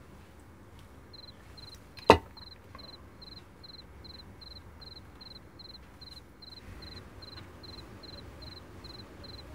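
A drinking glass set down sharply on the table, one knock about two seconds in and the loudest sound. A cricket chirps steadily in the background, about two to three chirps a second, from about a second in.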